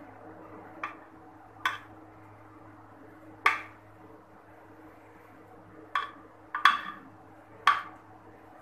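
Steel ladle clinking against a glass baking dish and a pan while thick custard is poured and spread: about seven sharp knocks at uneven intervals, two of them close together near the end, over a faint steady hum.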